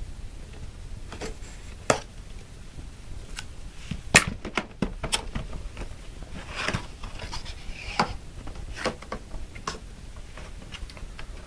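Cardboard phone box and its seal tape being handled and opened: scattered sharp clicks and taps, with soft scraping and rustling of card in between.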